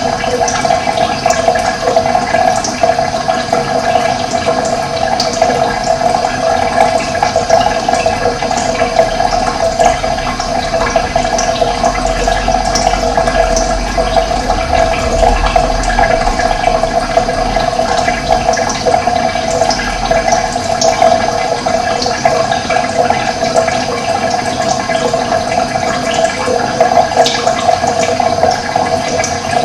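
Running water flowing steadily with an even rush and small splashing ticks, with a faint low rumble for several seconds midway.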